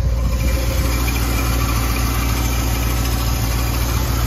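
1962 Ford Thunderbird's 390 cubic inch V8 idling steadily.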